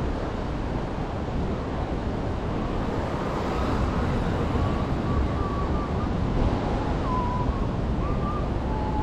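Steady sea surf washing on the beach, with wind buffeting the microphone. A few faint short whistle-like chirps come in the second half.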